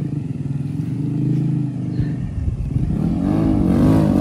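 Honda Grom's 125 cc single-cylinder engine with an aftermarket exhaust, revving as the bike is ridden. The pitch climbs, drops briefly about two seconds in, then rises again and grows louder as the bike comes closer.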